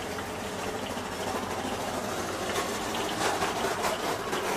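Hot oil sizzling and crackling as batter fries in a wok and is stirred with chopsticks, the crackle growing denser about halfway in.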